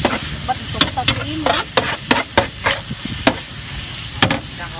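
Metal spatula scraping and tapping on a flat griddle while short noodles, bean sprouts and chives are stir-fried, over a steady sizzle. The strokes come unevenly, about two a second.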